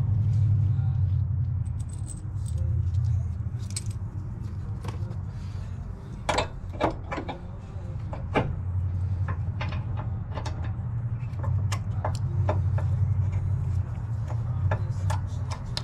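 Loose bolt, washers and spacers clinking and tapping against the traction bar bracket as a heim joint is fitted by hand, a handful of sharp metal clicks, most of them about six to eight seconds in. A steady low rumble runs underneath.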